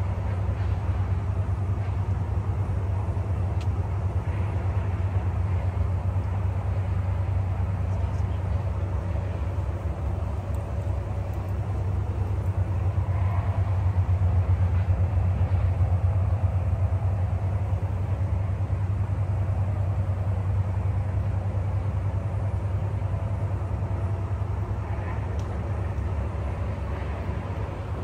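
Wind buffeting the phone's microphone: a steady low rumble with a faint hiss above it.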